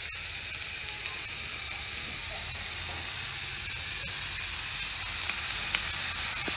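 Sliced red onions sizzling steadily in a frying pan, with a few faint clicks.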